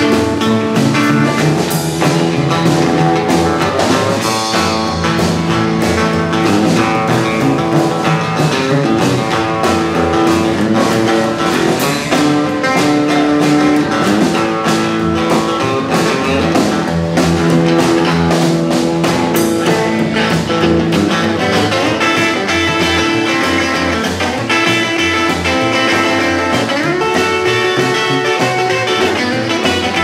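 Live blues boogie played by a trio of electric guitar, upright bass and drum kit, with no singing: the guitar carries the tune over a walking bass line and a steady drum beat.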